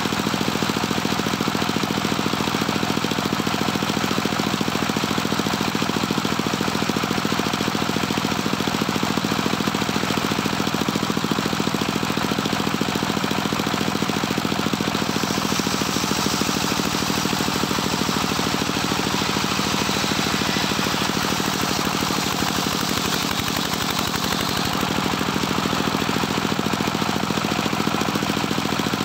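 Engine of a homemade circular saw bench running steadily with its blade spinning. About halfway through, the blade bites into a teak log and a high, hissing cutting noise rides over the engine for about ten seconds before it fades.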